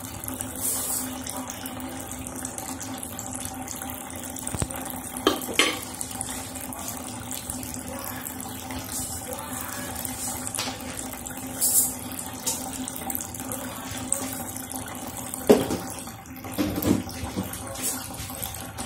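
Pot of rib soup boiling on a gas stove, a steady bubbling hiss under a low hum, with a few short clinks and knocks as a spoon and plastic containers are handled.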